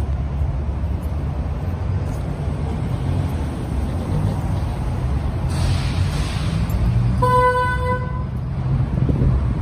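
Street traffic with a steady low rumble of passing cars and a brief hiss about five and a half seconds in, then a car horn honking once for about a second.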